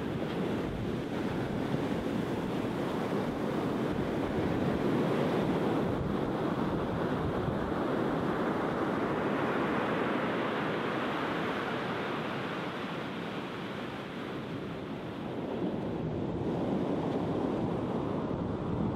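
Surf breaking and washing up a sandy beach: a continuous rush that swells and eases, strongest a few seconds in and dropping back for a while before building again near the end. Wind rumbles on the microphone underneath.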